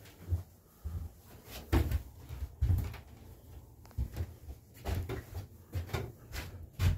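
Footsteps on bare wooden subfloor: a series of dull thumps, roughly one a second.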